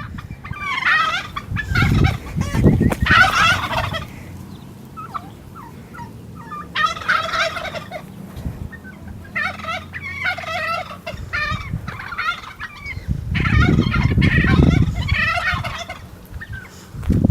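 Domestic turkeys gobbling, about five separate rattling gobbles spread over the stretch, with a low rumble under the last ones.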